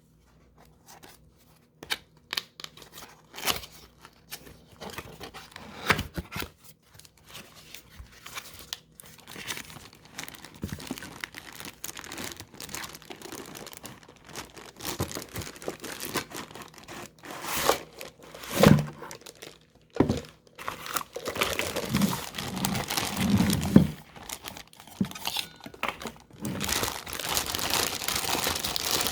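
A product box and its plastic and paper packaging being opened and handled: crinkling and tearing, with scattered knocks and clicks. It grows busier and louder in the last several seconds.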